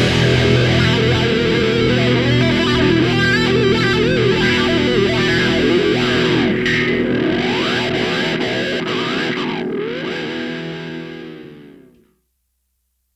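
Rock background music: distorted electric guitar holding and bending notes, fading out near the end.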